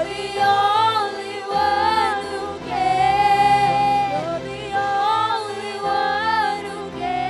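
A woman singing a slow worship song into a handheld microphone, holding long notes, over sustained instrumental chords and low bass notes that change every second or so.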